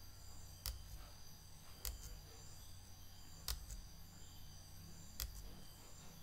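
Four faint, sharp clicks, spaced about one and a half seconds apart: keys or a mouse pressed to page through a document on a computer. Under them runs a faint, steady electrical hum.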